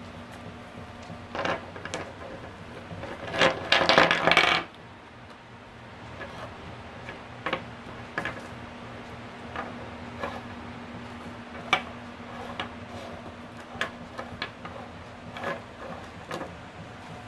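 Raw crystal stones clattering together and onto a wooden tabletop, with a dense rattle about three to four seconds in, followed by single knocks as the stones are set down one at a time.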